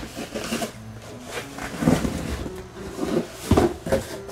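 Mandarin oranges being tipped and taken out of a cardboard box, knocking and rolling onto the floor among the cardboard's scraping. The knocks are irregular, with louder ones about two seconds in and again near three and a half seconds.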